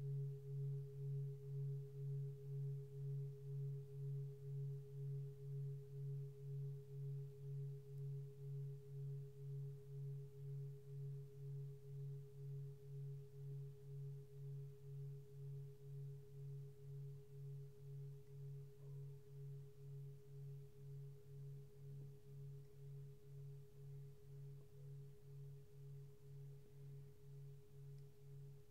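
A 27.5 cm Lingam singing bowl ringing and slowly dying away. Its deep hum pulses evenly, a little under twice a second, with a fainter higher overtone held steady above it.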